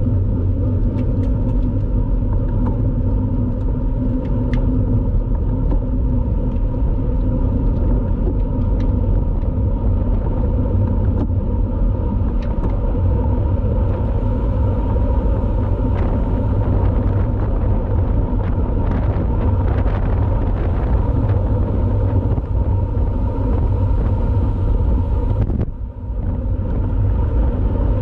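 Wind rumbling steadily on a road cyclist's camera microphone while riding at speed, with a few light clicks scattered through it and a brief drop in level near the end.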